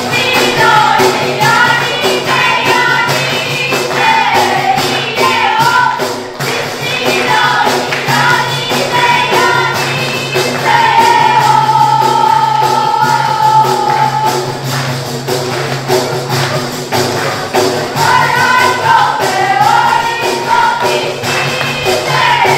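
Traditional Albanian wedding song: voices singing together over an even beat of def frame drums, with one long held note about halfway through.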